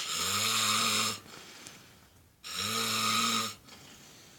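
A man snoring in his sleep: two snores about a second long each, some two and a half seconds apart, each a low steady drone with a hiss over it.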